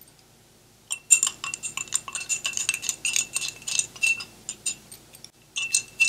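A small metal spoon stirring gallnut tannin powder into water in a glass jar, clinking rapidly against the glass, which rings. The clinking starts about a second in, stops briefly near the end, then resumes.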